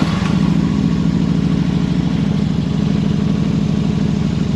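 2013 Harley-Davidson Road Glide Custom's V-twin engine idling steadily, just after being started.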